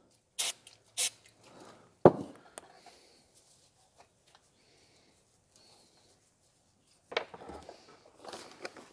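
Aerosol can of carburetor cleaner sprayed in two short hisses about half a second apart, then a knock on the wooden workbench. Faint rubbing follows, with a few light knocks and handling sounds near the end.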